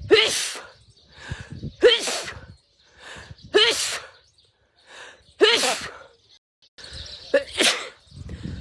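A woman sneezing over and over: five sharp, loud sneezes about two seconds apart, each with a short voiced start, with quieter sounds between them. The sequence repeats as an edited loop.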